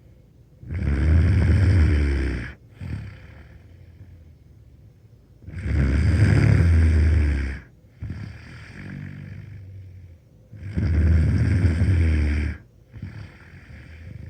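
A 13-year-old boy snoring loudly: three long snores about five seconds apart, each lasting about two seconds, with quieter breathing between them.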